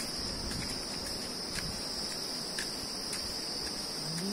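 Insects singing in a steady, high-pitched buzz that does not break, with a few faint clicks over it.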